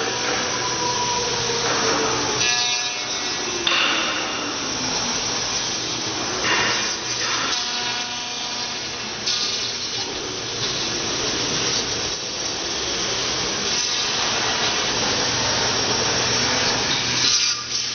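CNC machine cutting: a continuous coarse cutting noise over a steady low machine hum, with brief swells in level now and then.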